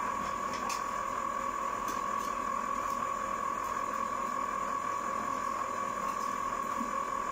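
Electric ice cream maker running steadily, its motor giving a constant whine at one pitch while the paddle churns the mix. A few faint light clicks sound over it in the first few seconds.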